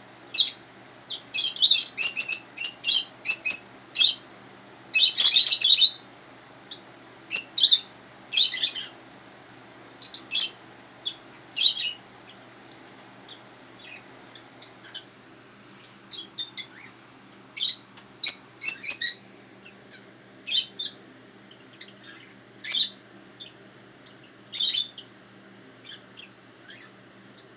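Small bird chirping and twittering in short, irregular bursts, busiest in the first few seconds, then scattered single chirps.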